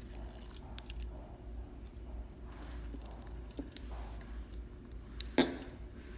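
Light clicks and rustles of thread being handled and led through the thread guides of a Juki MO-6700DA serger during threading. One sharper click comes about five seconds in.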